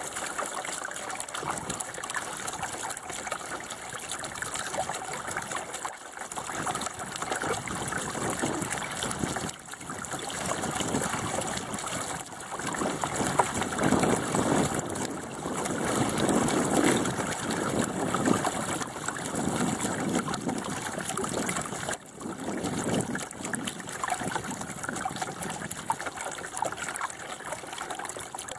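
Water rushing and gurgling along the hull of a small sailing dinghy under way, swelling and easing in irregular surges.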